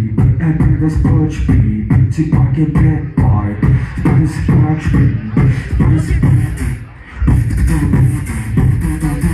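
Live beatboxing into a microphone, amplified through a stage sound system: vocal kick and snare beats in a steady rhythm with pitched low tones underneath. The beat drops out briefly about seven seconds in, then comes back.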